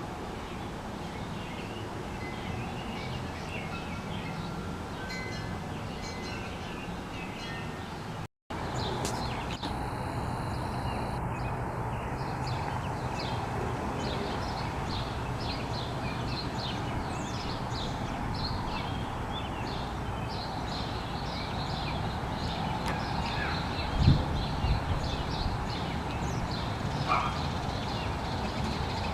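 Outdoor yard ambience of small birds chirping and calling, many short high chirps, over a steady background noise. The sound cuts out for an instant about eight seconds in, and there is a single low thump near the end.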